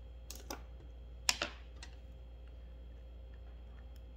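A handful of light, sharp clicks from small hand tools on a wooden tabletop, as a small precision screwdriver is set down during an eyeglass hinge repair. The clicks fall in the first two seconds, the loudest a little over a second in.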